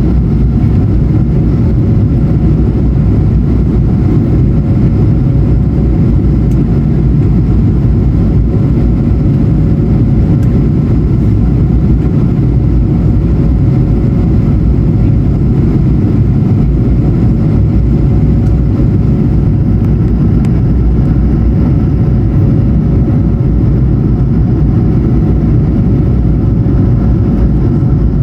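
Steady cabin noise inside an Airbus A220-100 in flight on descent: a loud, even low rumble of airflow and its Pratt & Whitney PW1500G geared turbofan engines, with a faint steady hum running through it.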